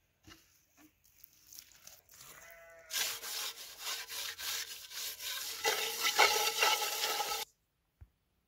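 A hand rubbing and scraping the mud-caked bottom of a metal cooking pot, a dense rasping with the pot ringing faintly under it. It cuts off suddenly near the end.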